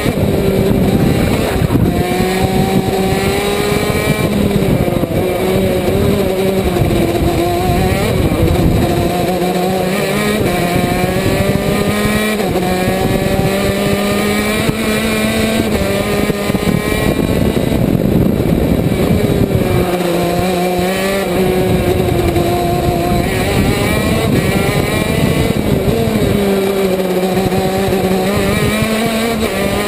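KZ2 shifter kart's 125 cc two-stroke engine heard onboard, revving up through the gears with short drops in pitch at each shift, then falling away on braking into the corners, again and again through the lap.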